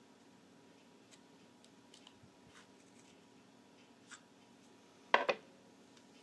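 A few faint scattered clicks and taps, then two sharp knocks close together about five seconds in, the loudest sound here.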